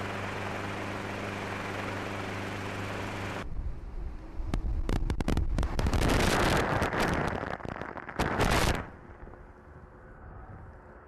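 A steady engine drone with a low hum. About three and a half seconds in it cuts to a loud, rough rush of water spray and wind hitting a small inflatable boat and the microphone, full of crackling hits. This stops abruptly near nine seconds, leaving a quieter low rumble.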